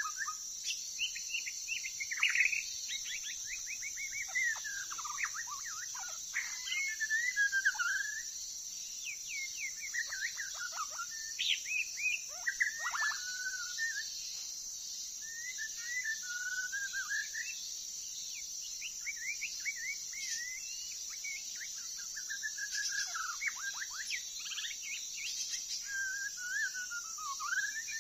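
A songbird sings in varied whistled phrases, warbles and rising and falling glides, one phrase every couple of seconds with short gaps between. A steady high-pitched drone runs underneath.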